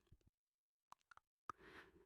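Near silence, with a few faint, short computer mouse clicks.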